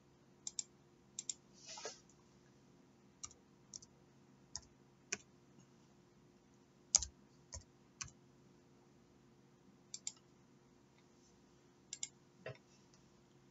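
Computer mouse clicking: scattered single clicks and quick double clicks a few seconds apart, over a faint steady hum.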